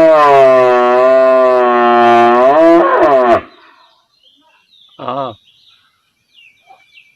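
Cow mooing: one long, loud moo that ends about three and a half seconds in, then a short moo about five seconds in.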